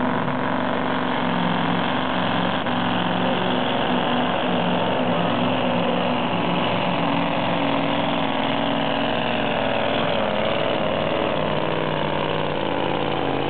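Semi truck puller's diesel engine running hard under heavy load as it pulls the sled down the track: a loud, steady engine note that wavers slightly in pitch.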